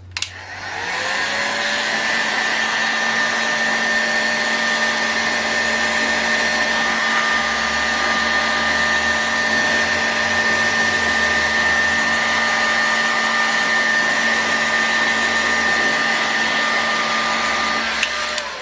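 Steady high-speed whir with a hiss from the Raduga glow engine's crankshaft and ball bearings being spun at speed. It winds up over the first second, holds steady, and stops near the end. The spinning is meant to free up a rough bearing gummed with old preservative.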